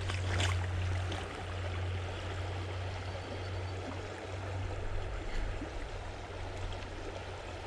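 Shallow creek water flowing steadily over rocks, an even rushing hiss.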